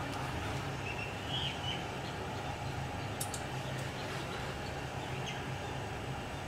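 Steady background hiss with a constant low hum, and small birds chirping faintly now and then; a couple of sharp clicks about three seconds in.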